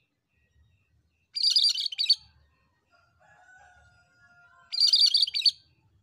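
Caged cucak Kerinci (cream-striped bulbul) singing: two loud, rapid, high chattering phrases about three seconds apart, with fainter, lower drawn-out whistles between them.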